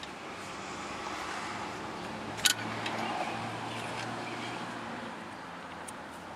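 A steady low hum over a haze of background noise, with one sharp click about two and a half seconds in.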